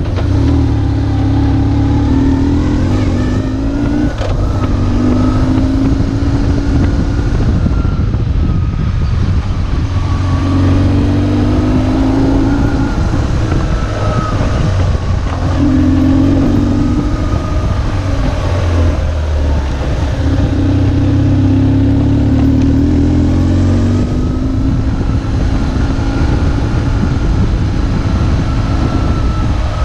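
BMW R1150GS's air/oil-cooled boxer twin pulling hard under way, its pitch climbing about six times and dropping back at each gear change or roll-off.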